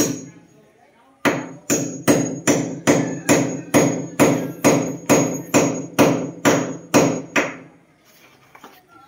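Hand hammer blows at the window frame while precast moulding is fitted: one blow, a pause of about a second, then a steady run of some eighteen strikes at about three a second, each with a high ring. The blows stop about two seconds before the end, leaving a few faint knocks.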